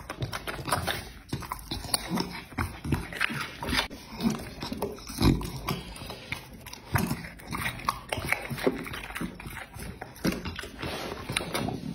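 A dog chewing and biting food, with irregular short crunching and smacking bites.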